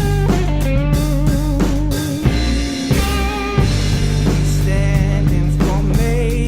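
Rock music with electric guitar, bass and drums and a wavering lead melody.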